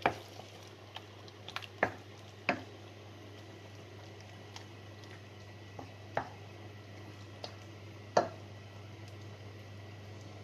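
Wooden spoon stirring thick chicken curry sauce in a stainless steel pot: soft squelching of the sauce, with a few light knocks of the spoon against the pan. A steady low hum runs underneath.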